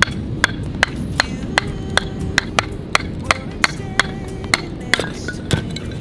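Wooden knocks from a knife being batoned down through a thin upright board on a chopping log to split kindling: a long, even run of sharp strikes, about two or three a second.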